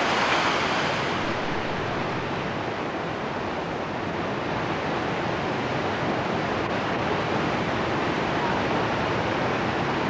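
Steady rushing roar of a waterfall's falling whitewater, a little louder in the first second and then even.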